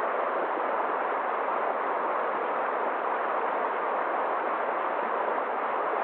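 Mountain stream rushing steadily over rocks, a constant even wash of water noise.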